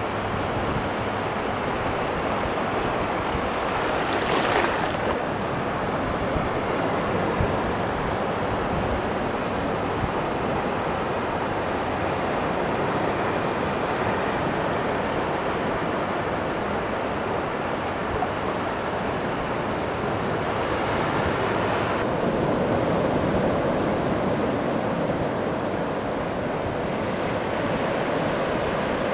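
Ocean surf breaking and washing in the shallows: a steady rush of water, with a louder crash about four seconds in.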